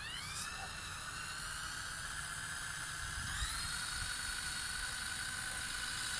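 Cordless drill motor whining steadily as it turns a homemade spool, winding in kite line. The pitch falls just after the start, holds, then steps up about three seconds in.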